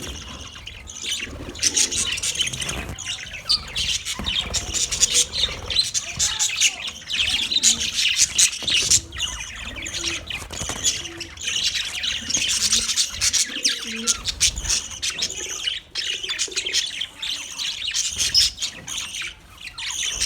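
A flock of budgerigars chattering and chirping without a break, with many quick overlapping chirps and the odd squawk.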